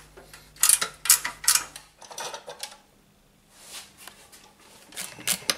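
Metal clinks and knocks as the metal air-cleaner housing of a Citroën DS engine is worked loose and lifted off. There is a cluster of sharp clicks about a second in and more near the end, with a quiet spell between.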